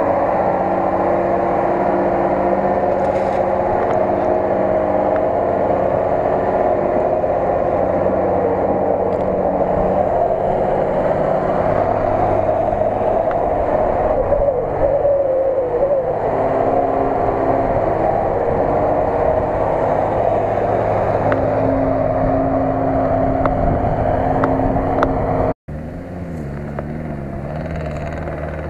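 Engine of a Unimog-style off-road truck running under load as it crawls through mud and up a dirt slope, its pitch shifting several times with the throttle. After a sudden break near the end it goes on more quietly, heard from farther off.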